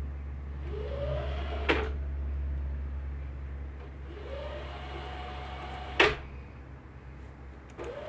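Two sharp plastic clicks about four seconds apart, the loudest sounds here, as parts are pressed into place inside a desktop PC during a memory install. Each click follows a short rising tone, and a low hum runs underneath.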